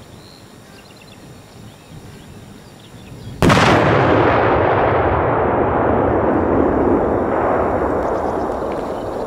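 A very large firecracker (salute) charge explodes in one sharp bang about three and a half seconds in, followed by a long rumbling echo that slowly dies away.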